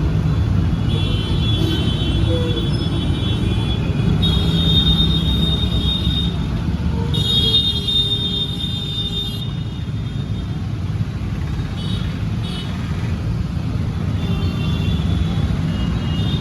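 Busy street traffic: a steady rumble of engines and tyres with vehicle horns honking again and again over it, several held for two seconds or more and a couple of short toots about twelve seconds in.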